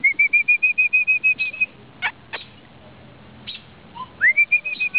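A quick rising whistle that runs straight into a rapid string of evenly spaced high chirps, about eight a second, lasting under two seconds. A few sharp clicks follow. Near the end the same rising whistle and chirp series starts again.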